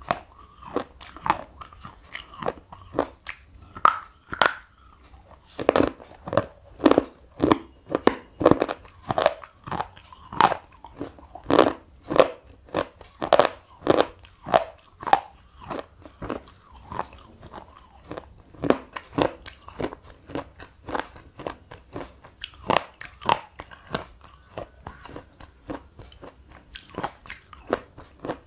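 A thick slate pencil being bitten and chewed: a steady run of sharp, dry crunches, about two a second.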